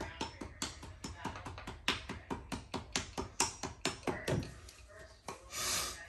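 Hammer tapping rapidly along the edge of a carpet at a doorway, about four quick strikes a second, stopping about four seconds in. A short rustle follows near the end.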